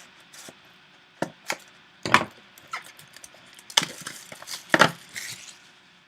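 Hands opening and handling a trading card box and its pack. Irregular clicks, taps and short rustles of cardboard and wrapper, with the loudest about two seconds in and again near five seconds.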